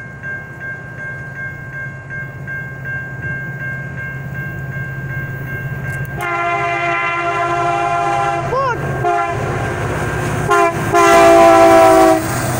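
Grade-crossing bell ringing steadily over the low rumble of an approaching Norfolk Southern diesel train. About six seconds in, the locomotive's multi-chime air horn sounds a long blast, then a short one, then a final long blast that is the loudest sound of all.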